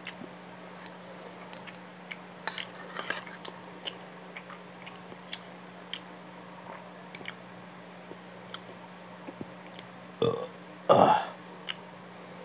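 Close-miked chewing of a mouthful of fried rice with small wet mouth clicks, then a short throaty sound and a louder burp about eleven seconds in.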